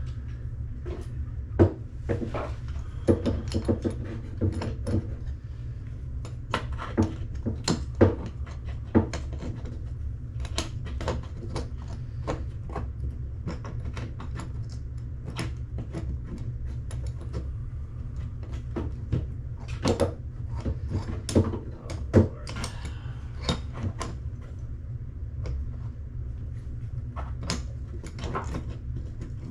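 Irregular metal clinks, taps and knocks of hand tools working at a faucet's rusted mounting nuts under a sink, over a steady low hum.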